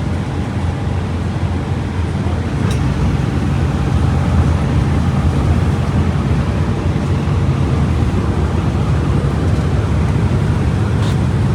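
Volkswagen Volksbus 17.230 EOD bus engine running with a steady low drone that grows a little louder about four seconds in.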